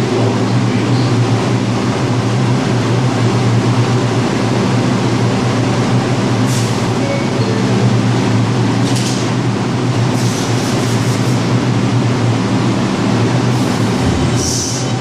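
A New York City Subway R142 train standing in the station, its equipment giving a steady low hum. Several short bursts of air hiss come partway through and again near the end, as the train gets ready to leave.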